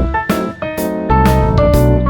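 Background music with a steady beat: keyboard or guitar notes over a bass line.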